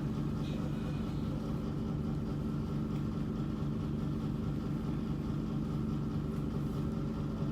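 Steady low mechanical hum with several held tones.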